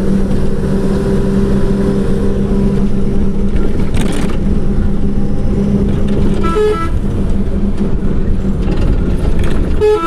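An engine running steadily under a loud low rumble, with a short horn-like toot about six and a half seconds in and another at the end.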